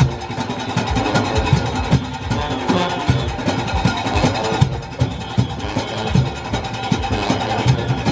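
A Junkanoo band playing live as it marches: a fast, steady drum beat with brass horns over it.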